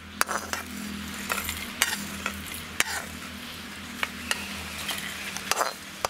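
Steel spatula scraping dry-roasted coconut and red chilli masala from an iron pan into a steel mixer jar: a dry rustling scrape broken by several sharp metal-on-metal clinks and taps. A low steady hum runs underneath.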